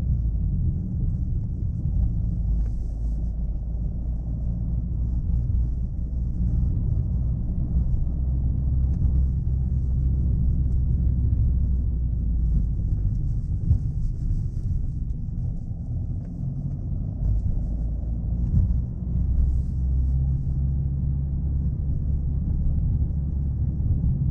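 Chevrolet Aveo being driven: a steady low engine drone mixed with road rumble, easing slightly about two-thirds of the way through and then building again.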